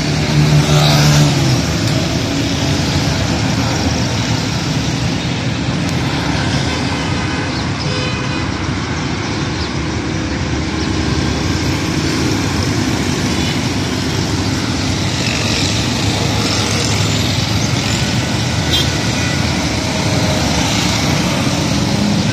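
Busy city road traffic: a steady wash of engine and tyre noise from motorcycles, auto-rickshaws and cars passing close by. It is loudest in the first second or so, as a motorcycle goes past.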